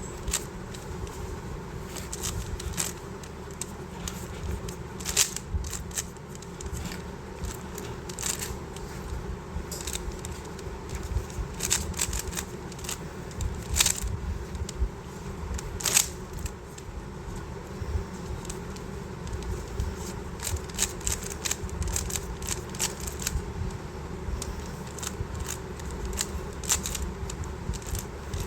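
Plastic speed cube being turned fast during a timed solve: a continuous run of quick clicks and clacks from the turning layers, with a few louder snaps, over a steady low hum.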